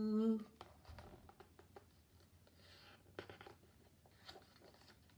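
A woman's held sung note breaks off about half a second in. Then come faint paper rustles and light clicks as a picture book's stiff page is handled and turned over.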